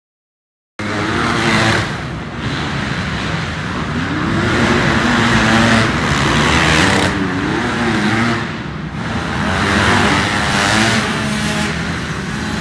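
Dirt bike engines revving, the pitch climbing and dropping again and again with the loudness swelling several times. The sound cuts in suddenly about a second in.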